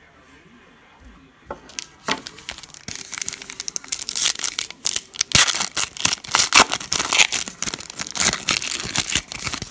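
Foil trading-card pack wrapper being torn open and crinkled by hand. It starts about two seconds in as scattered rips and grows into dense, irregular crinkling that is loudest in the second half, stopping just before the end.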